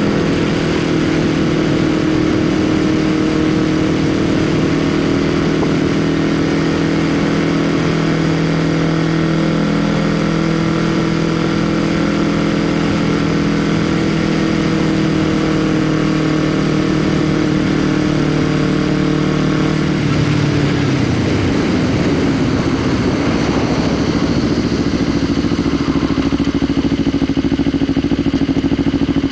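Kawasaki Ninja 250R's parallel-twin engine running at a steady cruise with wind rushing past the helmet. About 20 seconds in the engine note drops as the bike slows, then settles to a lower steady note.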